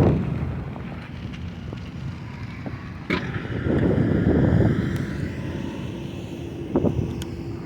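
Wind buffeting the microphone while cycling, swelling in a gust about four seconds in, with a couple of sharp knocks.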